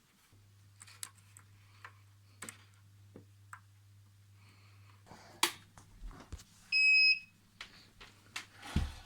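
JGaurora A5 3D printer's control-panel buzzer giving one short, high beep about seven seconds in, over a steady low electrical hum that starts just after the opening. Small scattered clicks of handling, and a low thump near the end.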